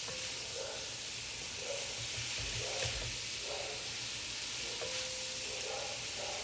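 Chicken liver and gizzard stir-frying in oil in a pan, sizzling steadily, with repeated stirring strokes of a spatula through the food.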